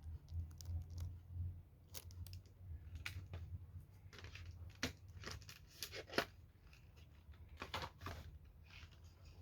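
Packaging being handled and opened by hand: irregular rustles, crinkles and small clicks, one sharper click about six seconds in, over a low steady hum.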